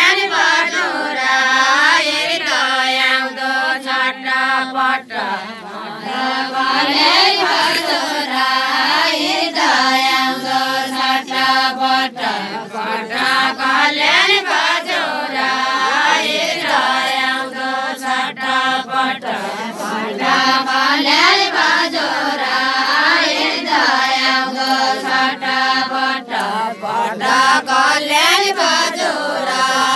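A group of women singing a Nepali Deuda folk song together, unaccompanied, in long held notes that rise and fall.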